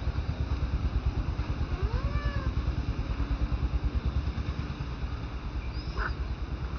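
Infant macaque whimpering softly while it lies on its back: one faint rising-and-falling whimper about two seconds in and a short squeak near six seconds, over a steady low rumble.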